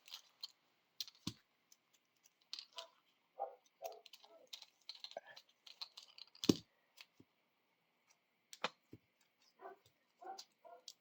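Scattered light clicks and taps of small acrylic beads and plastic parts being handled and sorted, with one sharper knock about six and a half seconds in.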